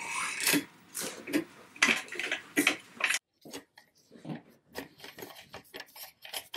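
Gloved hands working the metal mask frame and mask frame knob of a dental phantom head: irregular clicks, knocks and rubbing as the knob is loosened to lower the frame. The sounds are busier and louder in the first three seconds, then turn to lighter scattered ticks.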